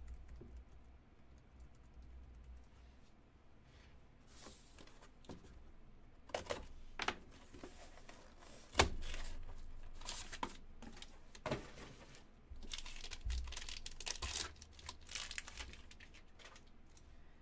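Hands tearing open a small sealed cardboard trading-card box: the seal sticker tears and cardboard and plastic rustle in short, irregular bursts. One sharp knock comes about nine seconds in.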